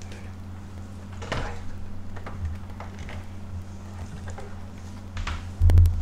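Handling noises at a desk: scattered soft knocks and rustles, then a loud low thump near the end, over a steady low electrical hum.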